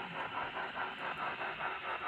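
Model steam locomotive's DCC sound decoder playing a rapid, even beat of exhaust chuffs through the engine's small speaker, with little bass.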